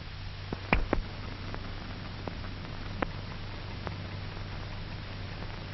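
Hiss and a low steady hum from an old film soundtrack, with scattered irregular clicks and pops, several close together about a second in.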